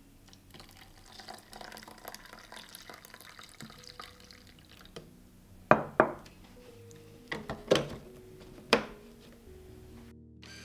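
Kitchen preparation sounds: water splashing with a patter of small clicks. Then five sharp knocks of something hard against dishes, each ringing briefly, coming as two quick pairs and then a single.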